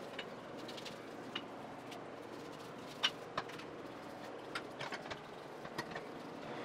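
Scattered light clicks and taps, about eight over several seconds, the loudest about three seconds in, from a paintbrush and hands working vinegar onto a rusty cast-iron hand plane body, over a faint steady background hum.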